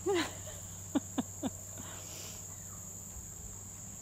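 Cane Corso puppies yipping in rough play: a short falling whine at the start, then three quick, sharp yips about a second in. A steady high chirring of crickets runs underneath.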